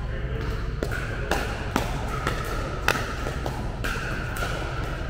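Pickleball paddles hitting a plastic ball in a quick exchange: about six sharp pops roughly half a second apart, each with a short ring in the large hall.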